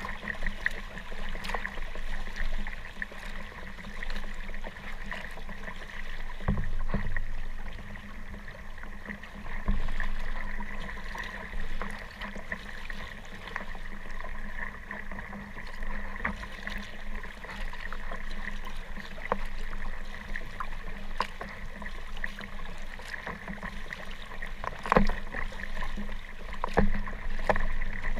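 Water splashing and lapping around a kayak on open water, with many short sharp splashes and knocks scattered throughout.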